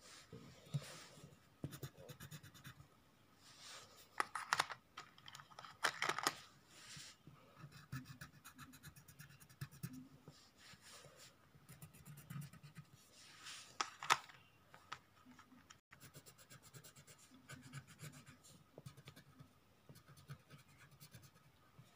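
Coloured pencil scratching on paper while a drawing is shaded in, with louder spells of scratching about four to six seconds in and again around fourteen seconds.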